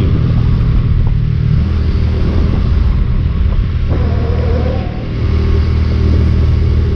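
Motorcycle engine running steadily at road speed, with wind rushing over the microphone; the engine note dips briefly about five seconds in and then picks up again.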